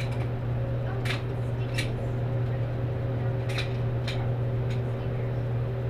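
Steady low machine hum of an indoor shooting range, with a few light clicks and taps scattered through it.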